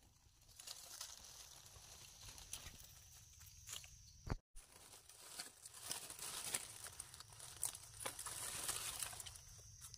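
Dry leaf litter crackling and rustling, with small snaps and clicks, as hands and a knife work through it to dig a red mushroom egg out of the forest floor. It breaks off for a moment about halfway through.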